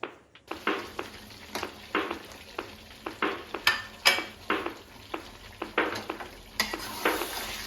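Food frying in a pan with a steady sizzle, stirred with a spatula in regular scraping strokes about twice a second, with two sharper clinks near the middle.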